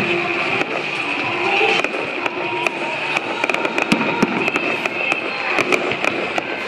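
Fireworks going off in quick succession: many sharp bangs and crackles, one after another, with music playing under them.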